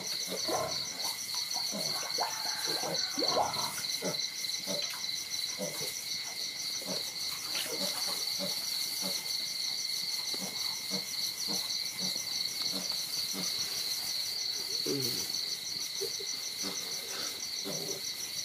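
Night insects trilling steadily with a fast, even pulse, with scattered short low sounds underneath.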